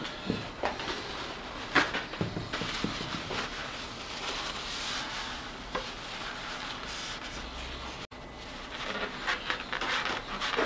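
Paper tissue rubbing and rustling over the painted steel tank of an air compressor as it is wiped down, with a few light knocks and clicks.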